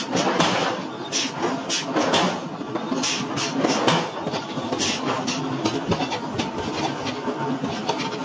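Heavy forging machinery running steadily, with irregular metallic clanks and knocks about once a second.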